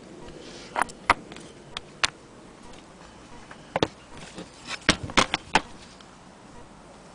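Cast-iron hand wheel and crank of a Willcox & Gibbs sewing machine being handled, its metal parts giving about eight short, sharp clicks and knocks at irregular intervals, the loudest a little past the middle.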